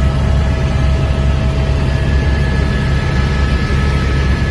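Helicopter heard from inside the cabin in flight: a steady, loud low drone of rotor and engine with a few thin, steady whining tones above it.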